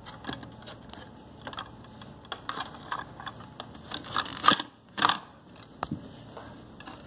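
Plastic clicks and knocks from a toy parking-garage playset and a plastic toy bus being handled and moved in its elevator. The knocks are scattered and irregular, with two louder ones about four and a half and five seconds in.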